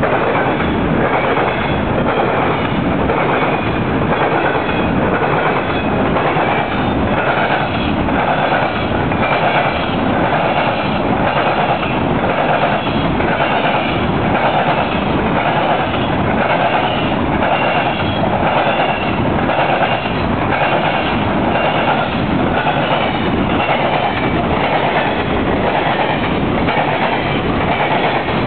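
Norfolk Southern grain train's covered hopper cars rolling over a railroad diamond crossing, their wheels clattering across the diamond in a steady rhythm that repeats about once a second.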